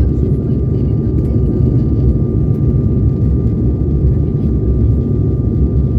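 Steady cabin noise of an Embraer E195-E2 jet with its Pratt & Whitney geared turbofan engines, heard from inside the cabin: a dense low rumble with one thin, steady high tone running through it.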